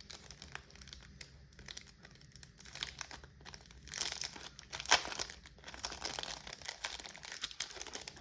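Packaging crinkling and rustling as a small item is unwrapped and taken out of its box, in irregular flurries with a sharper crackle about five seconds in.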